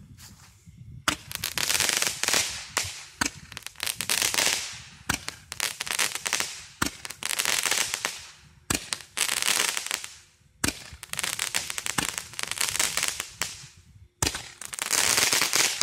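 Cutting Edge 10-ball crackling Roman candle firing, starting about a second in: a sharp pop as each ball is launched, every couple of seconds, each followed by a second or so of dense crackling from the crackling ball.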